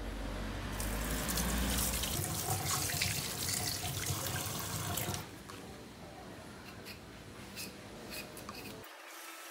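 Kitchen faucet running into a stainless steel sink as a potato is rinsed under the stream. The water stops about five seconds in, leaving faint clicks and scrapes of handling.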